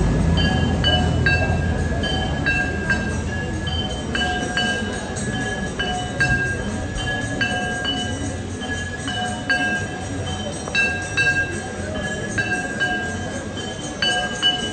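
Temple bells struck repeatedly during the evening aarti, clanging about twice a second with a ringing metallic tone. A low rumble underneath fades out in the first few seconds.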